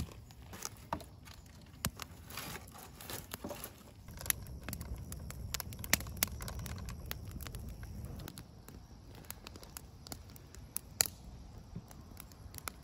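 Wood campfire crackling in a steel fire ring, with sharp pops scattered irregularly throughout. A low rumble rises about four seconds in and fades near eight seconds.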